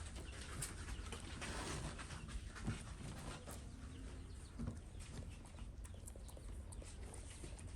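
A pet monkey grooming a cat's fur with its mouth: scattered small clicks and lip smacks, over a low steady rumble.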